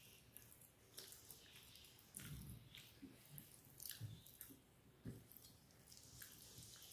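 Faint chewing and wet mouth sounds of a person eating, with scattered small clicks and a couple of soft low thumps.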